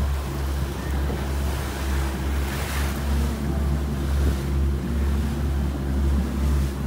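Suzuki outboard motor running with a steady low hum, mixed with rushing water from the boat's wake and wind on the microphone.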